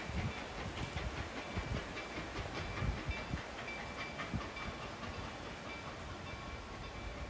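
Reading & Northern T-1 No. 2102, a 4-8-4 steam locomotive, giving off a steady hiss of steam, with irregular low thumps.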